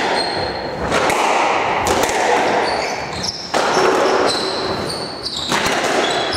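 Squash rally: the ball cracking off rackets and the court walls, several sharp impacts a second or two apart, with rubber-soled shoes squeaking on the wooden court floor.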